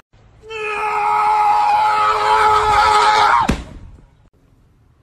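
A person screaming loudly in one long, steady scream lasting about three seconds that cuts off abruptly.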